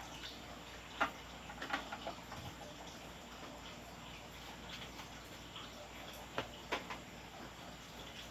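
A few scattered small clicks and taps from handling an opened radio cassette player and its parts on the repair bench, with steady faint background noise between them.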